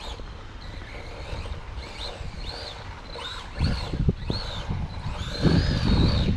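A 2S 5400kv brushless electric motor in an RC truck whining as it drives, its pitch rising and falling again and again with throttle blips. From about three and a half seconds in, a low rumble of wind on the microphone grows and becomes the loudest sound.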